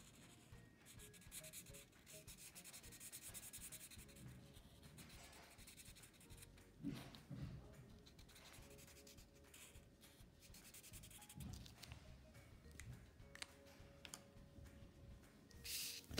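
Felt-tip permanent marker scratching faintly on paper in runs of short strokes, as stripes are drawn and filled in on a folded paper cat. A few soft knocks from handling, and a brief louder paper rustle near the end as the folded paper is moved.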